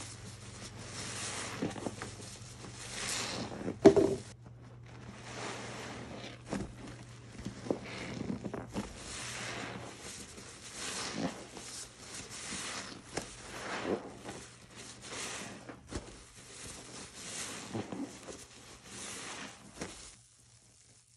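Foamy sponge squeezed and wrung by gloved hands in a basin of soapy water: wet squishing and sloshing, roughly once a second. One sharp knock about four seconds in.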